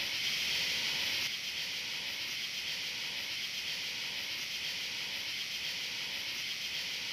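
A steady, even hiss with no tone or beat in it, dropping slightly in level about a second in.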